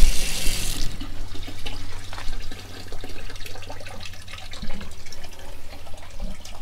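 Water from a gooseneck faucet splashing into a plastic sink basin, shut off abruptly about a second in. Afterwards only a low steady hum and faint clicks remain.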